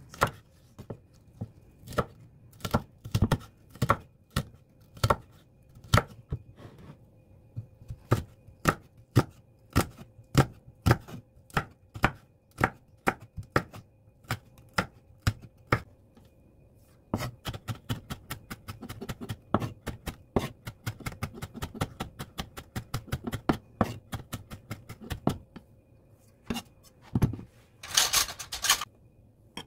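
Chef's knife chopping red chili peppers on a wooden cutting board: spaced single cuts at first, then quick, dense chopping as the chilies are minced fine. A brief louder rasping noise comes near the end.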